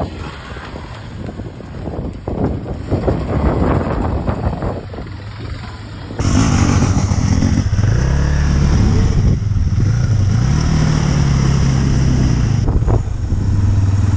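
Dirt bike engines running and revving. After a cut about six seconds in, a louder, steady engine drone that rises and falls in pitch.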